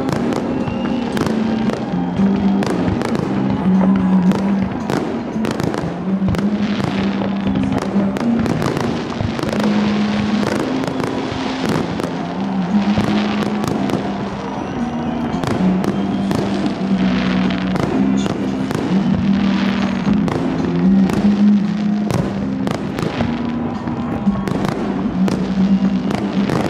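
Aerial fireworks salute: shells bursting in rapid, irregular bangs and crackles throughout, over music with long held notes.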